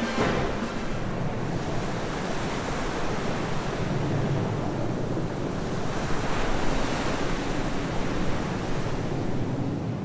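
A steady, loud rushing noise with no pitch or tune to it, ending abruptly.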